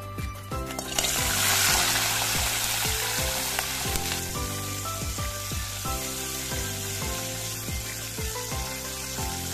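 Raw crab pieces hitting hot oil in a kadai: a loud sizzle starts suddenly about a second in, then settles into steady frying. Background music plays underneath.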